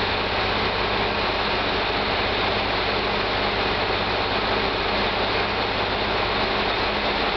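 Steady low engine hum of a diesel railcar idling under a constant hiss, unchanging throughout.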